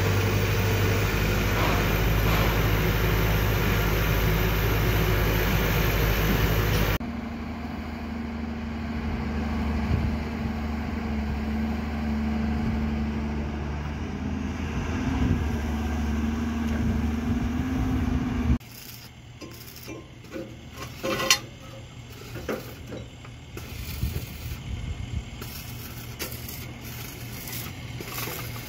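Kobelco hydraulic excavator's diesel engine running steadily, then, after a cut, another excavator's engine with a steady whine that rises briefly about halfway through. The last third is much quieter, with scattered clinks and knocks from work in a rebar-and-formwork pit.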